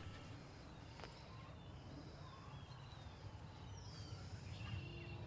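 Faint outdoor ambience: scattered bird chirps and short whistles over a low steady background rumble, with a light click about a second in.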